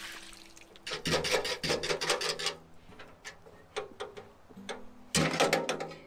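Metal clattering and clanking as a galvanized metal trash can and a propane burner are handled and set down on gravel. It comes in two bursts, one about a second in and a shorter one near the end, with a few single knocks between them.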